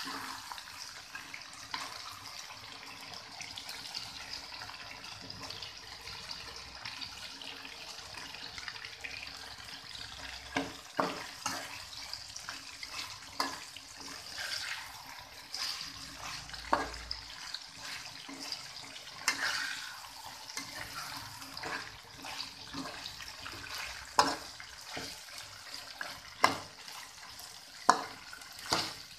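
Chicken frying in an oily sauce in an aluminium wok, a steady sizzle, with a metal spatula knocking and scraping against the wok as it is stirred; the knocks come often from about ten seconds in, the loudest near the end.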